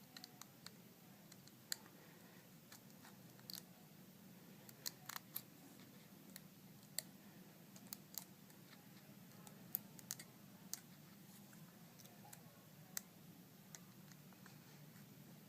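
Faint, irregular small clicks and taps of a phone's internal parts being handled as its LCD and digitizer ribbon cables are bent and worked into their connectors, over a low steady room hum.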